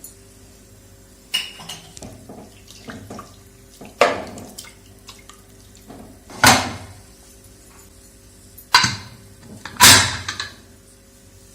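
Metal cookware and utensils clattering: about five separate knocks and clinks of pots, lids or a spoon, each ringing briefly, the loudest about four, six and a half and ten seconds in.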